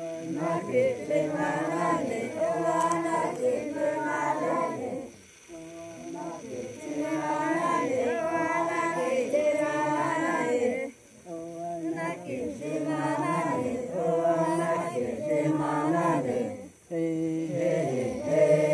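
Group of Noke Koi men and women singing a chant together, in phrases of five or six seconds separated by brief pauses.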